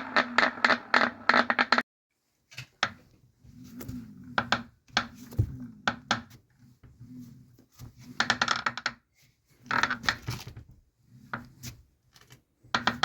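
Kingsong S22 electric unicycle's hub motor clicking: a fast, even run of loud clicks, about six a second, cuts off suddenly about two seconds in, then short clusters of clicks come over a low motor hum that slides in pitch. The owner wonders whether the clicks mean a bad motor.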